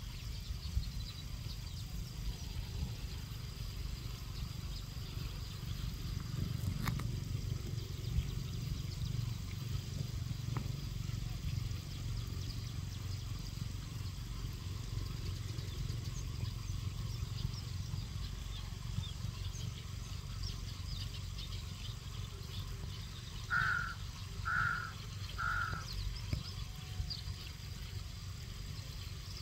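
Three short crow caws, about a second apart, near the end, over a steady low rumble.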